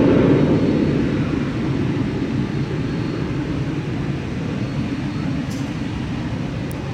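Low rumble of a Cessna Citation CJ2 business jet's twin Williams FJ44 turbofans climbing away after takeoff, fading slightly and then holding steady.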